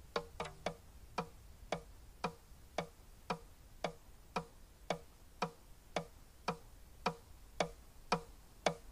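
Steady clock-like ticking, about two ticks a second, each tick short and even. It is the ticking that runs under the end of the closing song.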